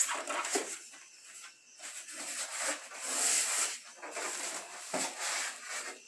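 Rustling and scraping of packing material, plastic wrap and styrofoam, as it is pulled off a new washing machine. The sound is irregular and loudest about halfway through.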